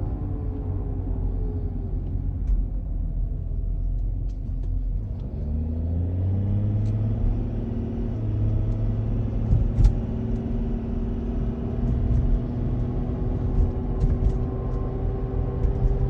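2014 Volkswagen Touareg TDI making the humming tone its owner calls strange, of unknown cause: the pitch falls over the first few seconds, rises again about five to seven seconds in, then holds steady.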